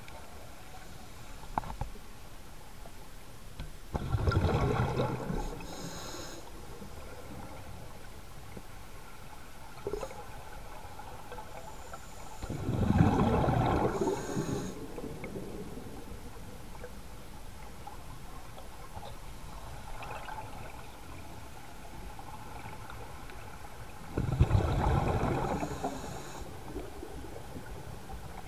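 Scuba diver's exhaled bubbles gurgling out of the regulator, three times about ten seconds apart, each lasting a second or two, over a steady quieter underwater hiss.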